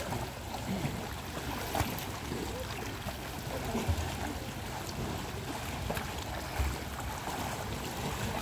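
Sea water washing against a rocky shore, with wind on the microphone and a few short low thumps of wind buffeting.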